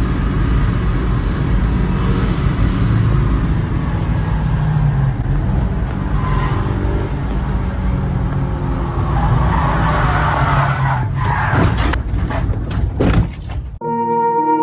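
A car driving fast, with steady engine and road noise, then several sharp thuds and scrapes about eleven to thirteen seconds in. Music starts just before the end.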